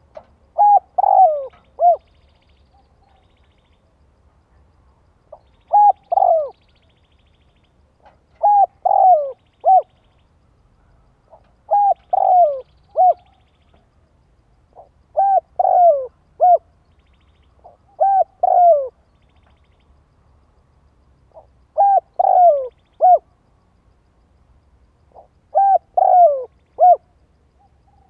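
Spotted dove cooing: eight phrases, one about every three and a half seconds, each a short run of three or four falling coos.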